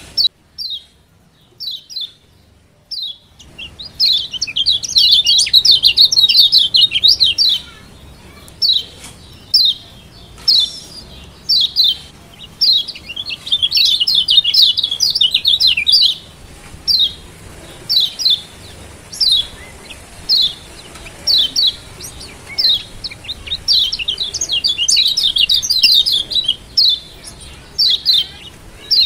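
Lombok yellow white-eye (kecial kuning) giving sharp, high 'ciak' calls, each a quick downward-sweeping note. They come singly about once a second, broken three times by fast, dense runs of calls lasting a few seconds. The opening seconds hold only a few notes.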